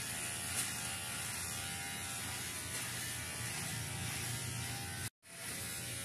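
Electric hair clippers buzzing steadily as they shave a head close. About five seconds in, the sound drops out completely for a moment, then the buzz returns.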